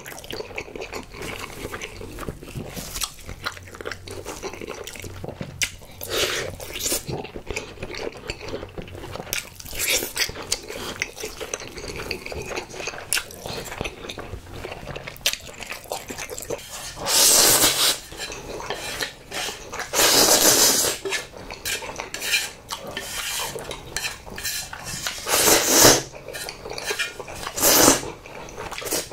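Close-miked eating sounds: a person chewing spicy sauced fried chicken and noodles, with chopsticks clicking against plates. A few louder, longer noisy bursts come in the second half.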